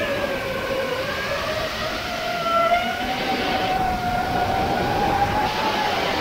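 Quadcopter drone's electric motors and propellers whining. The pitch dips in the first second or two, then climbs slowly as the throttle changes, with rushes of air noise partway through and near the end.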